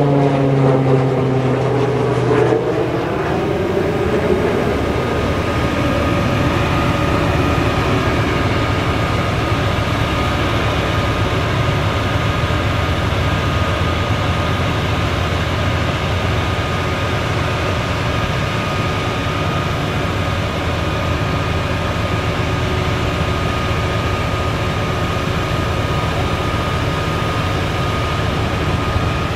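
International 7500 crane truck's diesel engine running steadily, driving the hydraulics of its National telescopic crane as the boom is raised. Pitched tones slide and then stop about two and a half seconds in, after which the sound settles into a steady drone with a thin high whine.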